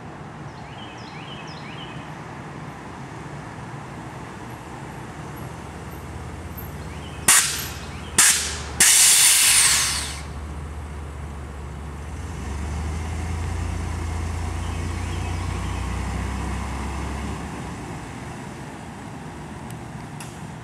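Air-ride suspension on a bagged Chevrolet Blazer letting air out in three loud hisses, two short and the last about a second long, as the truck is dropped low. A steady low hum follows for about five seconds, over a low vehicle rumble.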